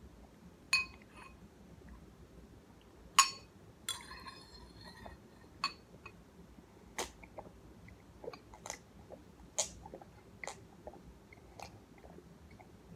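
Spoon clinking against a ceramic cereal bowl, the louder strikes leaving a short ring, amid smaller clicks and chewing as cereal is eaten and drunk from the tipped bowl.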